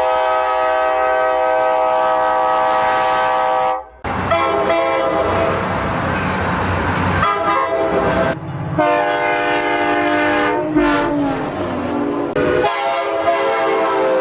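Coaster commuter-train locomotive horns sounding in several separate, abruptly cut takes. A long steady multi-note horn chord comes first, then the rumble and clatter of a passing train with the horn under it. Another horn chord follows whose pitch drops as the train passes, and a further blast comes near the end.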